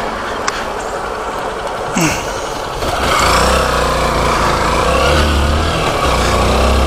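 Small motorcycle's engine heard from the rider's helmet camera, running quietly at first and then pulling hard from about three seconds in, with wind noise on the microphone. The engine sound dips briefly near six seconds before picking up again.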